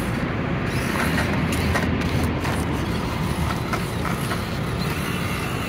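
Axial SCX24 Chevy C10 1/24-scale RC crawler driving down over rocks, its small electric motor and gears running steadily, with a few light clicks.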